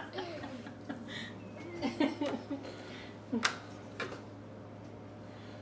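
Plastic X's-and-O's game pieces clicking as they are handled and set on the board: two short sharp clicks about half a second apart, three and a half seconds in, over a steady low hum.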